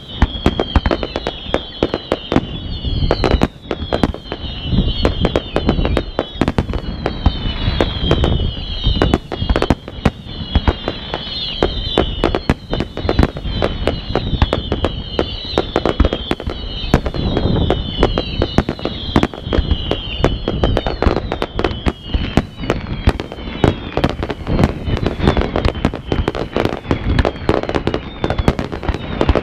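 Fireworks display going off continuously: rapid bangs and crackling from bursting shells, with short high whistles falling in pitch over and over that fade out about two-thirds of the way through.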